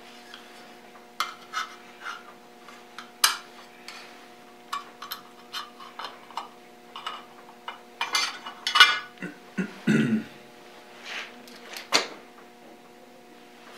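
Sheet-metal side dust covers on a surface grinder being handled and clipped into place: scattered light metallic clicks, taps and rattles, busiest about eight to ten seconds in, over a faint steady hum.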